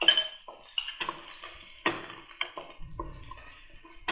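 A wooden spoon stirring and knocking against an aluminium pressure cooker, with clinks of a spoon on a ceramic bowl as curry leaves are tipped into the oil: a string of sharp knocks, the loudest at the start and about two seconds in.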